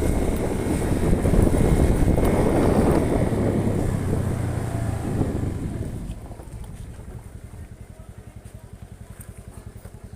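Car engine and road noise while driving, loud and rough at first. About six seconds in it drops sharply to a quieter, evenly pulsing engine note as the car slows to a crawl or idle.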